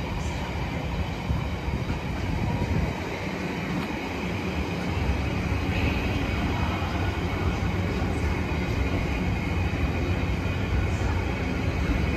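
Container freight train's loaded flat wagons rolling past: a steady rumble of wheels on the rails, growing a little louder about five seconds in.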